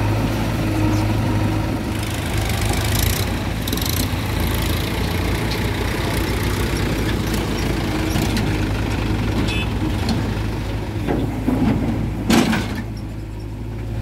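Diesel engines of a Mahindra Yuvo tractor and a JCB 3DX backhoe loader running steadily, a constant low drone, with scattered knocks and one loud thump about twelve seconds in.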